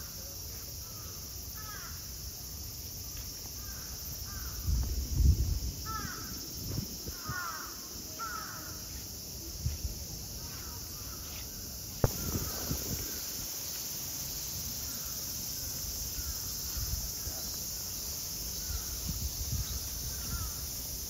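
Crows cawing again and again, a run of harsh calls through the first half that grows fainter later, over a steady high outdoor hiss. A low rumble comes about five seconds in, and a sharp click about twelve seconds in.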